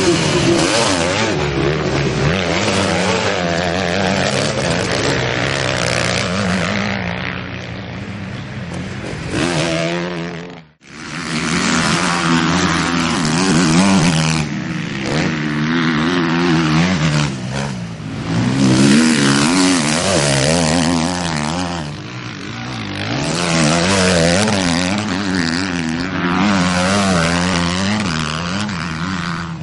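Motocross bike engines revving hard, their pitch climbing and falling over and over as the riders work the throttle around the track. The sound cuts out abruptly for a moment about eleven seconds in, then picks up again.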